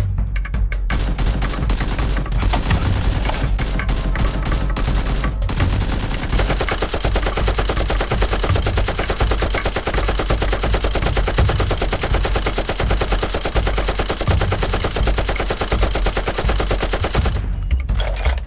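Rapid automatic gunfire sound effects: long bursts start about a second in, pause briefly around the middle of the first third, then run unbroken until shortly before the end. A steady background music bed runs underneath.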